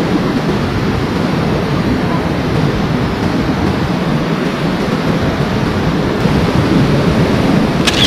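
Waterfall pouring over rock ledges into a pool: a loud, steady rushing of water.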